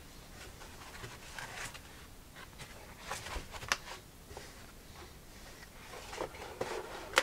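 Quiet handling of a cardboard box with a foam insert: soft rustles, scrapes and light taps, with one sharper click near the end.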